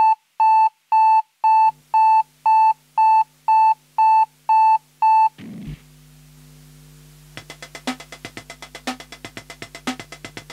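Opening of an electronic music track: alarm-clock beeping, two beeps a second, stopping after about five seconds. A low synth drone holds underneath. A fast ticking beat comes in about halfway through.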